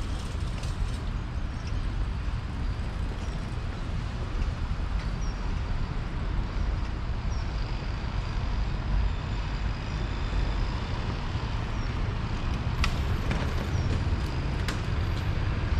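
Steady city street traffic noise, a continuous low rumble of road vehicles, with a few sharp clicks near the end.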